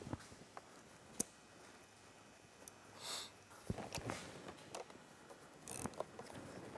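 Faint, scattered clicks and taps of a screwdriver and small metal parts as the pivot bolt of a motorcycle's front brake lever is fitted and turned, with a short breathy hiss about three seconds in.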